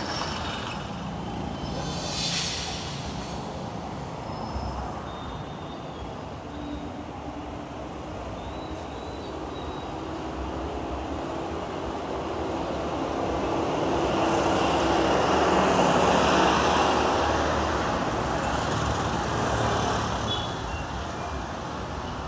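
Busy street traffic of motorcycle taxis, minibuses and cars, with engines running and tyres on the road. A short hiss comes about two seconds in, and the traffic grows louder from about 13 to 18 seconds as a vehicle passes close, then eases off.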